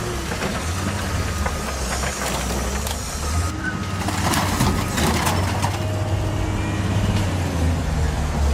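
A heavy machine's engine running steadily with a low drone, with scattered knocks and crunches of material being worked.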